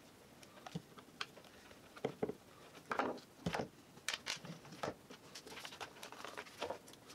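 Scattered light clicks and knocks of a plastic angle grinder housing and a screwdriver being handled on a workbench during disassembly.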